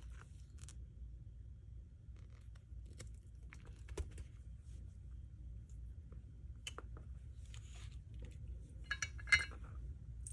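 Faint ticks and clicks of small metal parts and tools being handled, with a brief cluster of ringing metallic clinks near the end.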